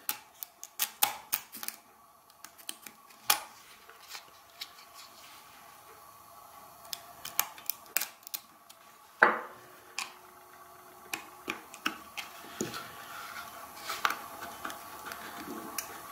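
Irregular sharp clicks and scrapes of a small hand tool working along a plastic blend-door actuator housing, cutting away the silicone glue that holds the cover on, with one louder knock about nine seconds in.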